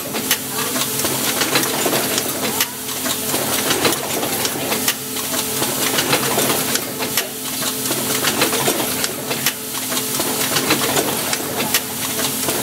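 Automatic rotary-table assembly machine running: pneumatic cylinders and grippers clicking and clacking at irregular intervals, with air hiss, over a steady machine hum.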